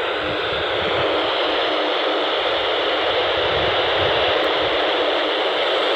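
Handheld amateur radio receiver giving out a steady hiss of FM static with its squelch open, while tuned to the ISS slow-scan TV downlink; no clear picture tones stand out. Wind rumbles on the microphone underneath.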